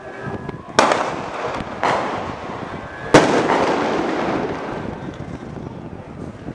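Three sharp bangs about a second apart, the third the loudest, each trailing off in a long echo: tear gas rounds being fired.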